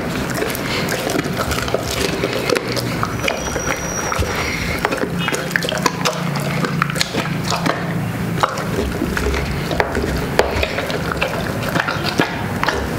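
A large mastiff-type dog chewing a whole roast chicken off the floor: wet smacking and slobbering, with many sharp cracks and crunches of bone.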